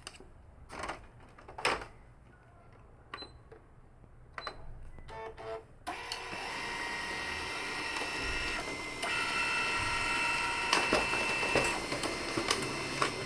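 Canon MF4450 laser multifunction printer on a test run. A few clicks and a string of short beeps come as it is set going. About six seconds in, its motors and rollers start running steadily with a whine.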